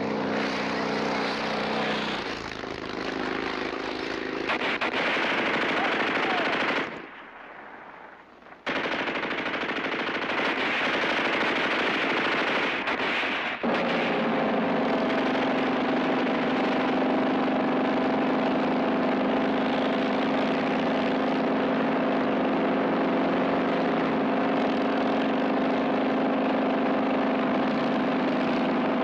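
Machine-gun fire in long runs, with a short break about seven seconds in. From about fourteen seconds on, a motorcycle engine runs steadily at speed.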